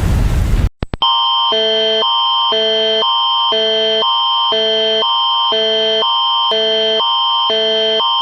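A loud, even noise cuts off under a second in. Then comes the Canadian Alert Ready emergency attention signal: a constant high tone under two chords that alternate about every half second, the higher pair with the lower pair.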